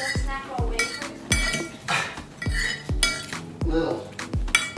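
Metal spoon and fork clinking and scraping against a plate during eating, with background music that has a steady low beat underneath.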